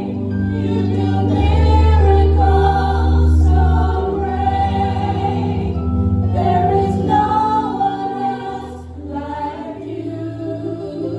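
Gospel choir singing a slow worship song in long held notes over a steady low accompaniment.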